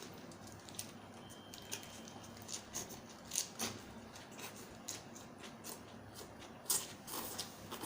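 Eating sounds: faint chewing with scattered small clicks and crackles.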